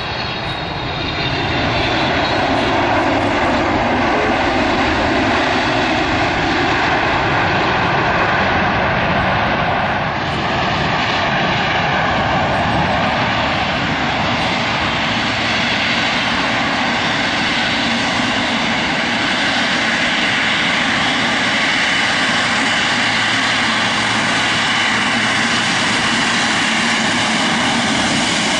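Boeing 777 twin jet engines at high power: a loud, steady rushing noise with a thin whine through it, swelling over the first couple of seconds as the airliner lifts off.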